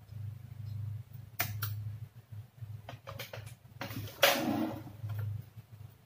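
Light clicks and taps of a metal probe and wires being handled against a TV circuit board, a few single clicks spread through, with a louder half-second scraping noise about four seconds in, over a steady low hum.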